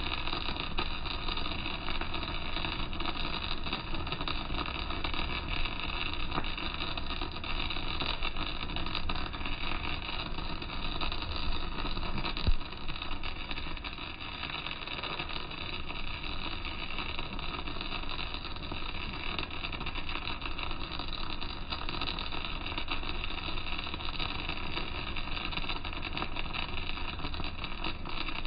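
Welding arc burning without a break on a vertical-down (3G downhill) weld on steel plate: a steady crackling hiss, with one sharp click about halfway through.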